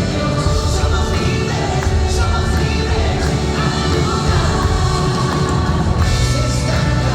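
Worship song played by a full band with a strong bass and drum low end, with voices singing over it.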